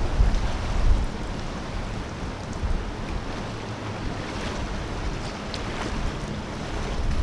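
Wind buffeting the microphone in gusts, strongest in the first second, over small lake waves lapping against the shore.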